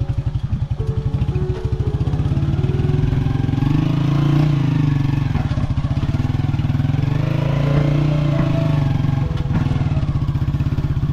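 A small engine, motorcycle-like, running with a fast, even pulse, its pitch rising and falling twice, about four and eight seconds in.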